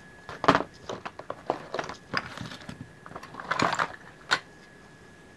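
Irregular clicks, knocks and rattles of hand tools and parts being handled inside the open metal casing of an inverter welding machine, loudest about half a second in and again near four seconds.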